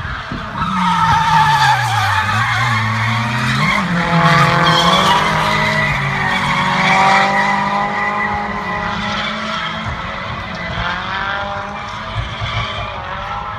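A drifting car's engine revving under load, its note dropping and climbing again in the first few seconds, over a long wavering squeal of tyres sliding sideways through the corner.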